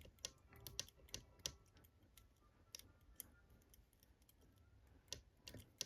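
Faint, irregular metallic clicks of a pick wire lifting and tapping the levers of an ERA 4-lever padlock held under light tension, a few clicks at a time with short gaps between.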